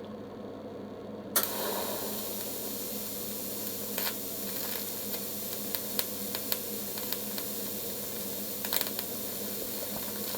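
An electric welding arc strikes with a sharp pop about a second in, then runs with a steady hiss and scattered crackles as copper tubing is welded with plain copper wire as filler. The welder judges that this wire is fusing poorly.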